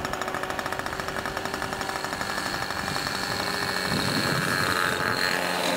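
Electric motor of a radio-controlled model airplane running with a steady high whine, over a rapid rattling pulse that fades out after about three seconds.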